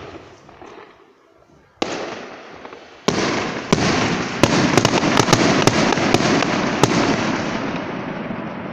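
Aerial fireworks going off: a bang at the start and another about two seconds in, then a loud burst about three seconds in. It runs on as a dense crackle pierced by about nine sharp cracks, then slowly fades.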